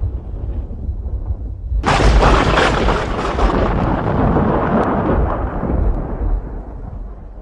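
Thunder sound effect: a low rumble, then about two seconds in a sudden loud thunderclap that rolls on as a long rumble and fades out near the end.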